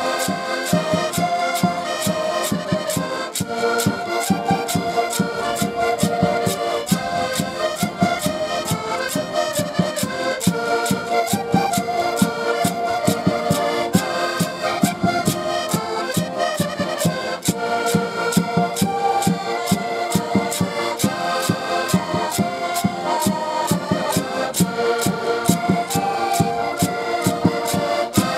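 An ensemble of diatonic button accordions playing a lively Portuguese folk tune together in full chords, over a steady, quick percussion beat.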